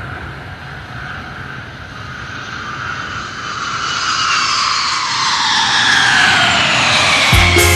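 A jet-aircraft sound effect: a noisy rushing whoosh that rises in pitch and grows steadily louder, like a jet taking off or flying past. Music with a heavy beat and bass notes cuts in near the end.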